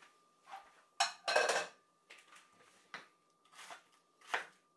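Kitchen handling sounds: a metal frying pan clattering and being set down about a second in, followed by a few sharp knocks of a kitchen knife on a wooden cutting board.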